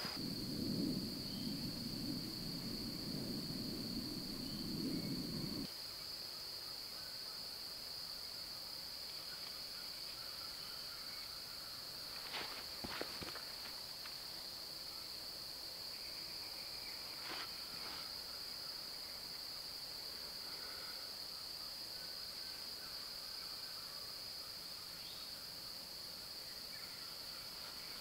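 Steady high-pitched drone of an insect chorus in woodland. A low rushing noise runs underneath for the first six seconds or so and cuts off suddenly, and a few faint clicks come near the middle.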